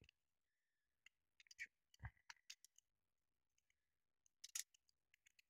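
Faint, scattered small clicks of hard plastic as the snap-fit claws holding an N gauge model train car's underfloor seat part are pried loose from the chassis, with a slightly louder click about two seconds in.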